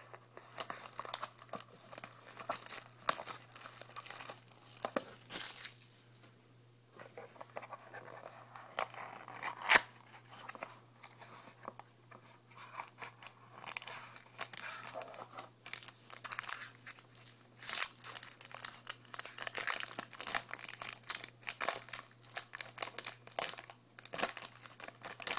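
Trading-card box packaging being torn open and crinkled by hand: irregular crackling, tearing and small clicks of handling, with a brief pause partway through.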